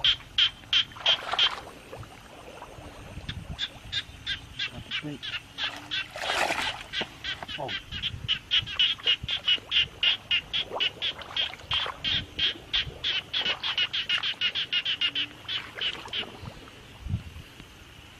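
A frog calling in a fast, even train of sharp clicking pulses, about five a second, dropping away for a couple of seconds early on and stopping shortly before the end. A brief splash of water about six seconds in.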